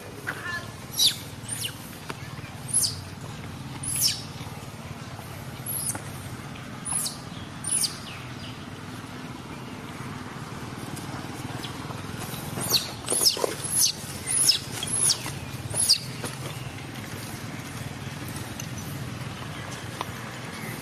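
A young macaque's short, high-pitched squeals, each a quick cry falling in pitch. They come in a scattered run of about eight, then a faster cluster of about eight more a little past the middle, over a steady low background hum.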